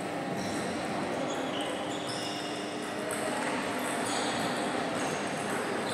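Echoing sports-hall ambience at a table tennis tournament between points: a steady background murmur, with scattered short high pings and squeaks from play and footwork at the other tables.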